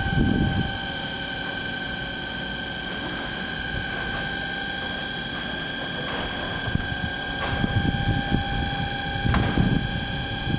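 Tiltable drip-off lane of an impregnation plant slowly tilting stacked timber packages. It makes a steady machine hum with a high whine. Low, irregular knocks and creaks come from the steel frame and load about a second in and again near the end.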